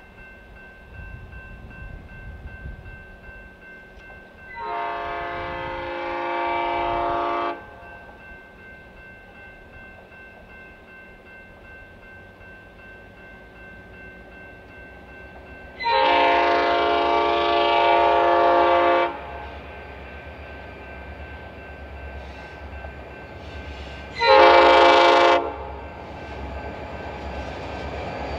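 Diesel locomotive air horn on an Illinois Central-painted unit sounding the grade-crossing signal as the train approaches: two long blasts, then a short one. The locomotive's low rumble grows louder toward the end.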